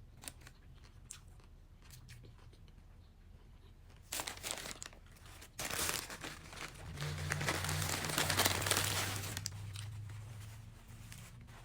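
Paper sandwich wrapper crinkling and tearing, starting after a few seconds of faint clicks, building to its loudest just before the end, then fading.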